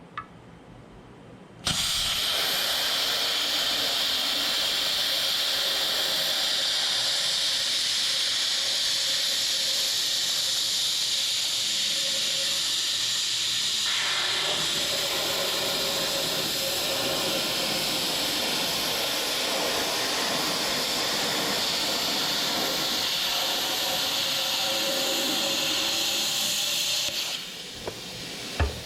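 Cutting torch running with a steady, loud hiss as it cuts a worn pin sleeve out of a loader boom. It starts suddenly about two seconds in, changes tone about halfway, and cuts off near the end, followed by a short knock.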